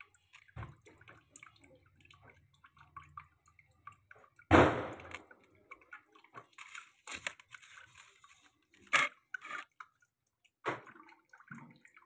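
Raw pork pieces in a metal pan giving scattered small crackles, pops and wet sounds, with one louder sudden knock about four and a half seconds in and two sharper pops later.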